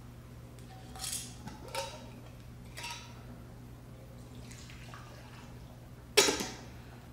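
Light clinks and taps of a small glass jar and its lid against a glass mixing bowl while whiskey is poured from the jar onto honey, with one louder, ringing clink about six seconds in.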